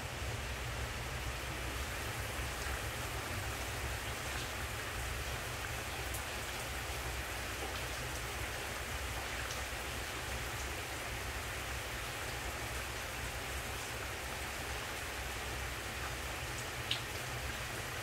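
Chicken pieces cooking in a pan: a steady sizzle over a low hum, with a few faint ticks and one sharper pop near the end.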